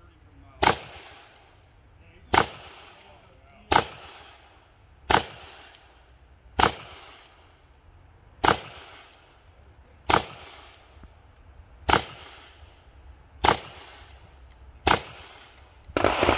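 AR-style rifle fired in slow, aimed single shots: ten sharp reports about a second and a half apart, each with a short echo trailing off.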